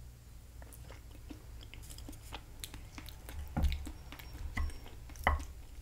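Close-miked chewing of a mouthful of food, with small scattered clicks and taps of a wooden fork against a plate and a couple of soft low thumps.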